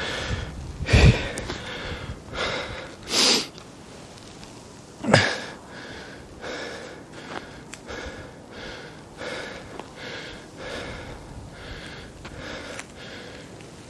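A man panting heavily close to the microphone, out of breath from climbing uphill: quick noisy breaths about one to two a second, with a few louder, sharper breaths in the first few seconds.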